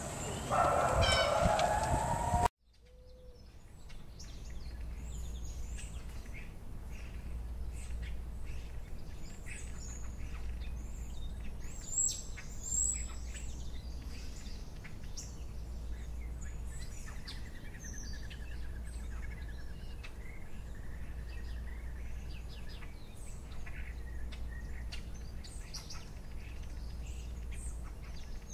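Wolf howling, cut off suddenly about two and a half seconds in. Then birds chirping and calling over a steady low outdoor rumble, with a longer trilling call about midway.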